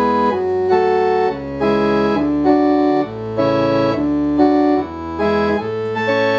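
Allen digital theatre organ playing a slow passage of sustained chords on its string stops, the chords changing about once a second over low bass notes.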